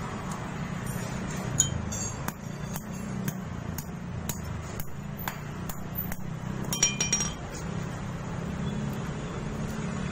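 Metal tools and small engine parts clinking and tapping as they are handled, with a cluster of ringing metallic clinks about seven seconds in, over a steady low hum.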